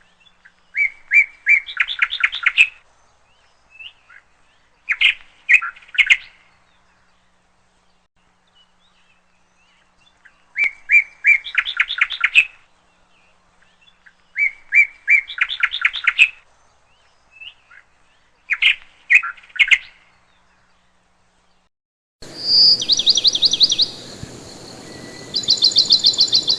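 A bird singing short, rapid trilled phrases, repeated every few seconds with quiet gaps between. Near the end the sound changes to a background hiss with a higher, faster trill.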